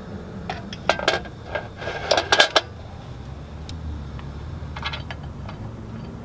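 Metal clinks and scrapes as a BMW E46 clutch pressure plate and disc are handled onto the flywheel over the alignment tool: a cluster of sharp clinks in the first three seconds, one ringing briefly, then a few lighter clicks near five seconds in.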